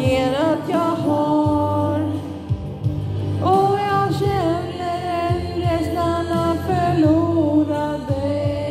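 Solo voice singing a slow ballad, holding long notes that waver in pitch, over a steady instrumental accompaniment.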